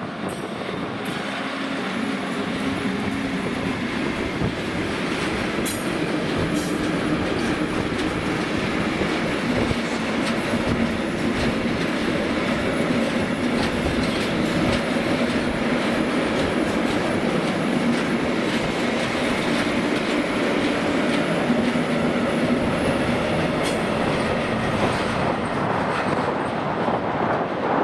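A train rolling along the track: a steady rumble of wheels on rail with a faint low hum and a couple of sharp clicks.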